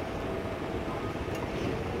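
Tatra T3 tram set approaching on curved street track, with a steady low rumble and a faint thin whine, over city traffic noise.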